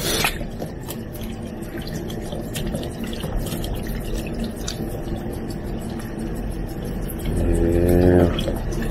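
Tap water running from a pull-down faucet over baby squid and splashing into a bowl of water as hands rub the squid clean. Near the end comes a short hum about a second long.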